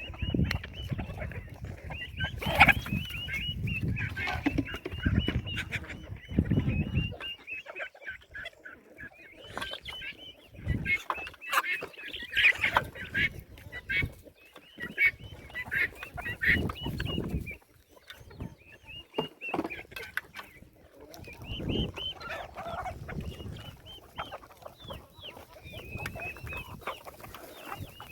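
A flock of domestic chickens clucking and chattering continuously while feeding on grain, many short overlapping calls. A low rumble runs under the calls for the first several seconds.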